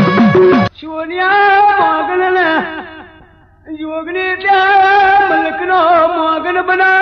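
Gujarati regadi folk singing: after drum-backed music cuts off suddenly under a second in, a male singer draws out two long, wavering sung phrases with a brief pause between them.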